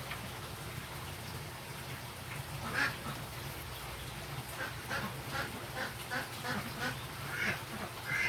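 A series of short, repeated animal calls: one near the start, then a quicker run of them in the second half, over a steady low hum.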